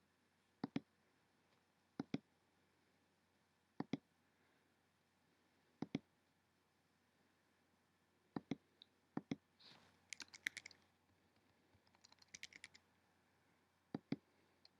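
Computer mouse clicking, each click a quick double tick, about six times with pauses between, then two short bursts of keyboard typing, and one more click near the end.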